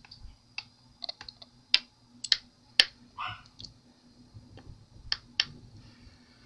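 Small craft magnets clicking and tapping against the light pad's surface as they are handled and tried in place: about a dozen sharp, irregular clicks.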